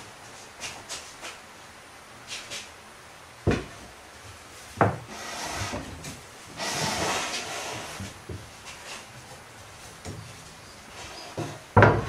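A slatted wooden bed base laid into a wooden bed frame: two sharp wooden knocks, then a few seconds of wood scraping and sliding, and louder knocks near the end as it is set down in the frame.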